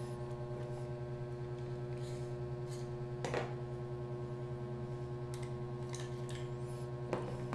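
Steady electrical hum, with a few faint clicks and rubs of metal airsoft pistol parts being handled as the brass inner barrel is worked out of the barrel assembly.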